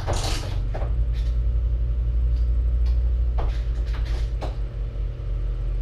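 Steady low hum of room background noise, with a short rustle at the start and a few soft clicks.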